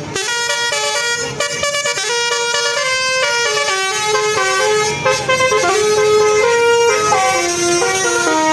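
A bus's Basuri 'telolet' multi-tone musical horn playing a quick melody of stepped notes. Several notes often sound together, and the tune steps lower toward the end.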